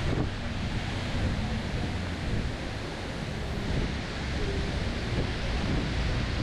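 Steady rush of water pouring down a long wall fountain, with gusty wind buffeting the microphone.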